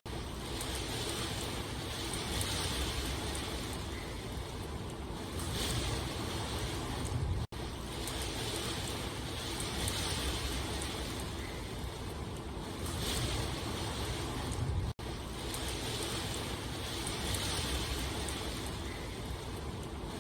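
Steady rain falling, a continuous rushing hiss with gentle swells. The recording is a loop that repeats about every seven and a half seconds, with a very brief dropout at each join, twice.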